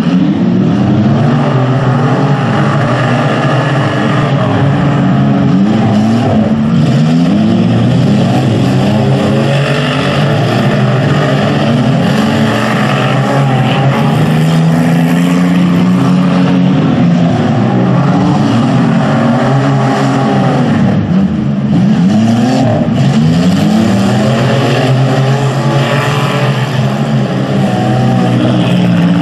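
Several demolition derby cars racing a figure-8 dirt track, their engines revving up and down in overlapping waves.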